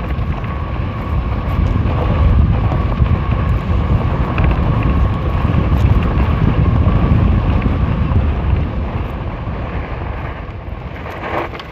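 Wind buffeting the microphone on a fast-moving electric fat-tire bike, a dense low rush with a faint steady whine over it in the first half. It eases off somewhat toward the end.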